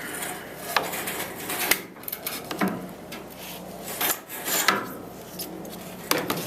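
Plastic tail light assembly of a 2001 Dodge Dakota being handled and pulled free of the body: hard plastic rubbing and scraping, with about five sharp clicks and knocks spread through.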